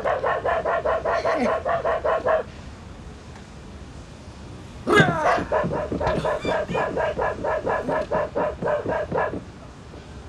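Small dog yapping in a fast, even string of about six yaps a second. It stops about two and a half seconds in and starts again about five seconds in for another four seconds.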